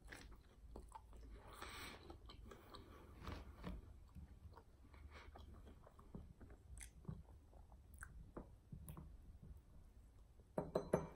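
A person chewing fried chicken wings close to the microphone, faint, with small crunches and wet mouth clicks. A louder burst of mouth sounds comes near the end.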